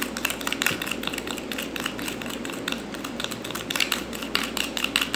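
A spoon beats thick, creamy dalgona coffee mixture (instant coffee, sugar and water) in a bowl by hand. It makes rapid, even clicking and scraping strokes, about five or six a second.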